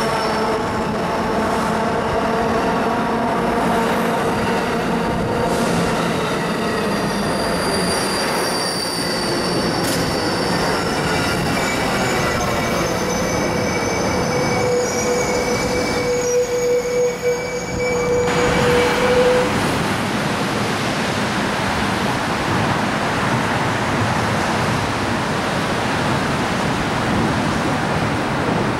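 Amtrak Pacific Surfliner bilevel passenger cars rolling past at close range, wheels squealing in several thin, steady high tones. About eighteen seconds in this gives way to an even rush of noise, most likely rain, while another train approaches in the distance.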